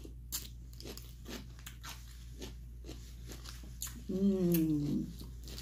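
Crunching and chewing of a pickle being bitten into: a run of sharp crunches. About four seconds in, a closed-mouth "mmm" hum falls in pitch.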